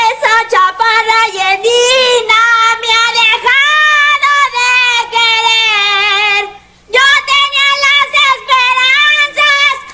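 A high, childlike voice of a cartoon rat character singing a melody in held, wavering notes, breaking off briefly about six and a half seconds in before singing again.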